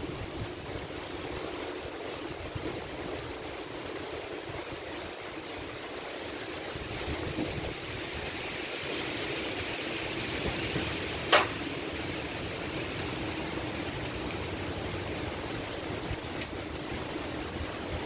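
Strong thunderstorm wind rushing steadily through trees, swelling a little past the middle. A single sharp click cuts through it about eleven seconds in.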